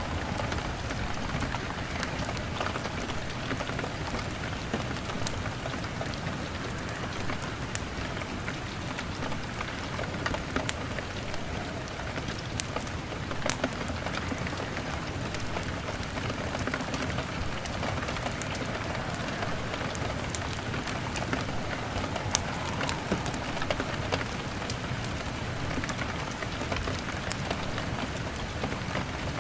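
Steady rain on a window mixed with a crackling log fire: an even hiss with scattered sharp crackles throughout.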